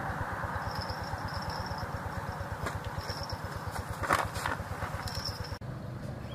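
An engine running steadily with an even low pulse. A faint high-pitched tone comes and goes in short spells, and a few sharp clicks sound about four seconds in.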